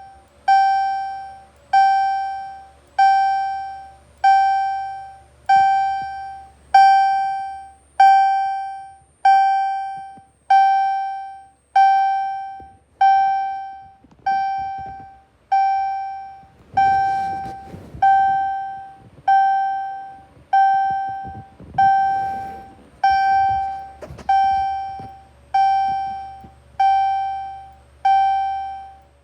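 Cerberus Pyrotronics CS-15/75 fire alarm chime strobe sounding on test: a single clear chime tone struck over and over, about once every 1.2 seconds, each stroke ringing out and fading before the next.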